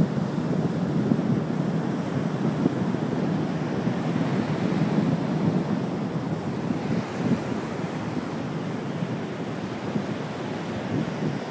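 Steady rushing of wind and water over open shallow water, with wind buffeting the microphone in an uneven flutter.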